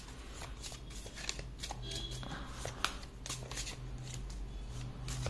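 Tarot deck being shuffled by hand: a steady run of soft, irregular card flicks and riffles, shuffling to draw a clarifier card.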